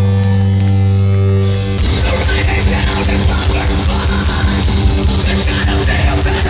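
Live heavy rock band: a held, low distorted guitar chord rings for a second or two, then the full band comes in with pounding drums, crashing cymbals and heavy guitars.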